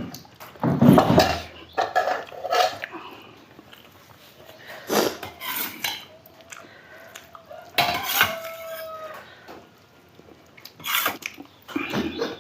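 Sounds of a meal being eaten: scattered irregular clinks, scrapes and knocks of plates and utensils, with chewing between them. A brief held tone is heard about eight seconds in.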